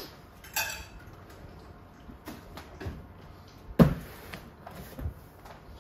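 A few knocks and scuffs from hands handling a large cardboard box of cookware, the loudest a sharp knock about four seconds in.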